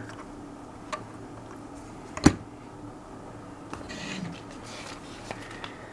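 A plastic Lego model being handled: one sharp click a little over two seconds in, a fainter tick about a second in and a soft rustle around four seconds, over quiet room tone.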